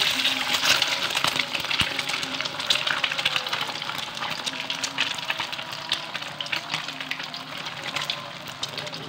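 An egg frying in hot oil in an aluminium wok: a dense sizzle and crackle of spattering oil, loudest at the start just after the egg goes in and slowly easing.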